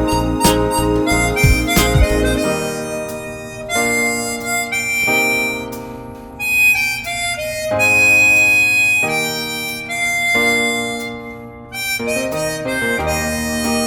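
Harmonica playing a slow melody in long held notes. A drum beat with bass backs it at first, drops out about two seconds in, and the bass comes back near the end.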